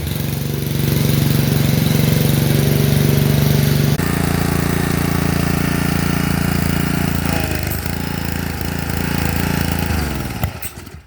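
Small Honda engine on a freshly repaired pressure washer running steadily after being started, with an abrupt change in tone about four seconds in; about ten seconds in it winds down, falling in pitch, and stops.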